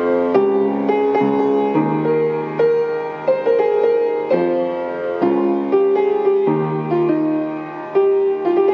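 Piano music: a slow run of notes and chords.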